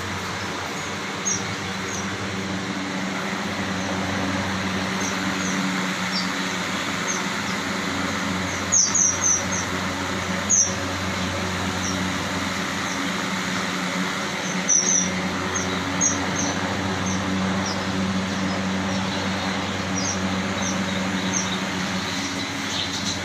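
Fischer's lovebirds chirping: short, sharp, high-pitched chirps, some single and some in quick runs of three or four, the loudest run about nine seconds in. Under them runs a steady hum and hiss.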